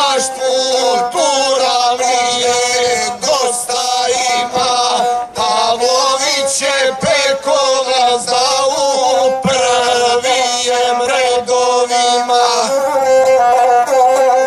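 Gusle, the single-string bowed Balkan fiddle, playing a wavering, ornamented melody between sung verses of an epic song.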